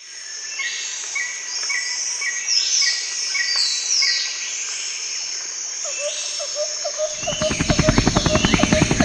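Woodland ambience: a bird calling in short repeated falling notes over a steady high insect drone. About seven seconds in, a louder low, fast pulsing rhythm comes in over it.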